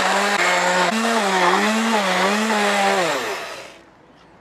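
Hand-held stick blender running in a jug of chopped raw beetroot, its motor whine rising and dipping in pitch as the blades catch the pieces. It spins down and stops about three seconds in.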